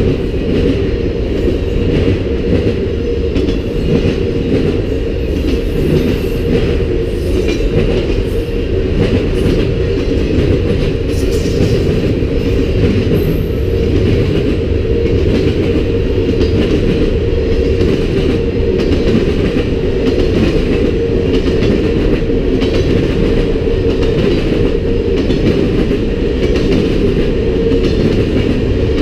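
Freight cars of a mixed manifest train rolling steadily past: a continuous rumble of steel wheels on rail with a regular clatter as the wheels cross rail joints.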